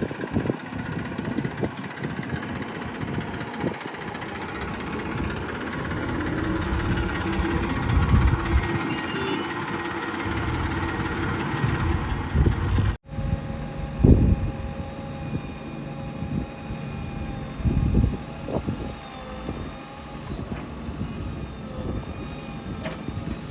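Diesel engine of heavy earth-moving machinery running steadily, with several loud swells as it works. About halfway through it cuts off suddenly and resumes with a different engine sound.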